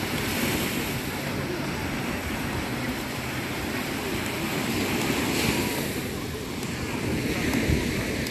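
Small surf breaking and washing up a sandy shore, swelling and easing as each wave comes in, with wind buffeting the microphone.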